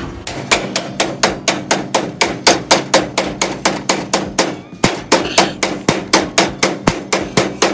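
Rapid, steady hammer blows, about four a second, on steel vise grips clamped to a 1970 Dodge Challenger's front torsion bar, knocking the bar back out of its anchor. There is a brief pause a little past halfway, then the blows resume.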